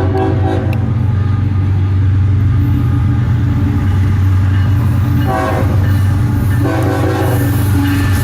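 CSX manifest freight train passing, its diesel locomotives running with a steady low rumble. The locomotive horn sounds a short blast at the start, another about five seconds in, and a longer one near the end.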